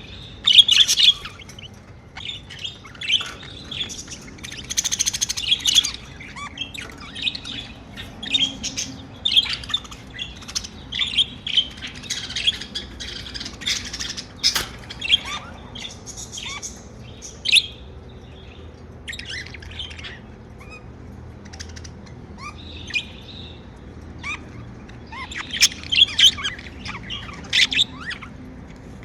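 Pet budgerigars chirping and warbling, a busy run of short high chirps with a few squawks, coming in clusters with brief lulls around the middle.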